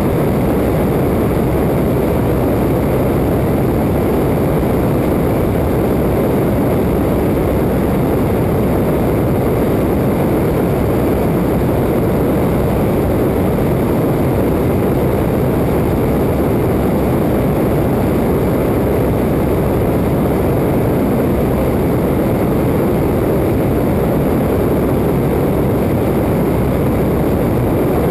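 Open-cockpit Waco biplane in cruising flight: a steady drone of engine and propeller mixed with wind rushing over the wing-mounted camera's microphone.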